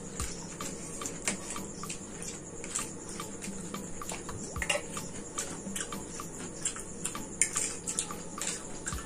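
Background music with a steady ticking beat, about three ticks a second, with a few louder clicks among them.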